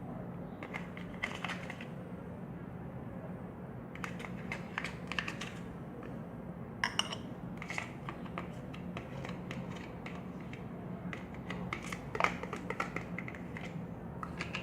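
Scattered light clicks and scratches of containers and a spoon being handled, over a steady low hum.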